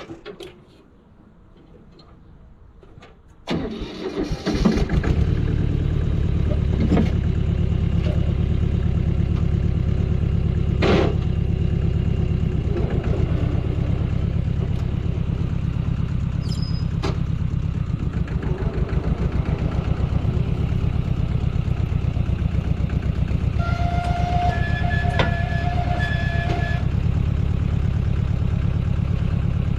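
Tractor engine cranked and catching about three and a half seconds in, then running steadily with an even low beat. A few sharp knocks and a brief higher whine sound over it later on.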